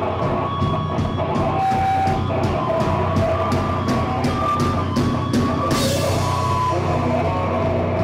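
Rock band playing live: full band sound over a regular drum-kit beat, with a cymbal crash a little before six seconds in.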